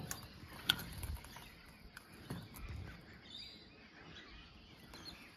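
Stainless-steel slide-out pantry drawer on a camper trailer being pulled open: a sharp click about a second in, then a few soft knocks. A bird chirps faintly near the middle.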